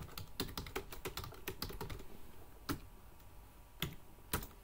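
Typing on a computer keyboard: a quick run of keystrokes over the first two seconds, then a few single keystrokes spaced out toward the end.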